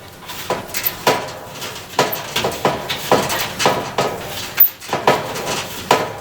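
Clothes dryer drum being turned by hand, knocking and clunking about twice a second as it rolls. With the front panel off the drum is unsupported at the front and rocks.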